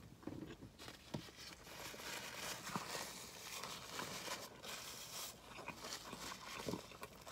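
Faint close-up eating sounds: chewing and a paper napkin rustling as greasy fingers are wiped, with small scattered clicks.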